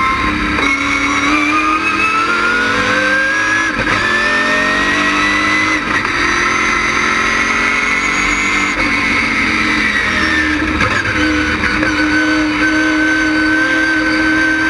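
LS6 V8 engine with an ASA cam in a GTA stock car running hard on track. Its pitch climbs with brief breaks at about 4 and 6 seconds, drops away around the tenth second, then holds steady near the end.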